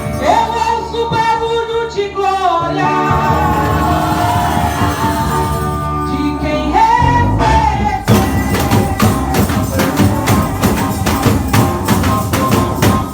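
Worship band music with singing and sustained pitched instruments. About eight seconds in, a steady beat of percussion hits comes in.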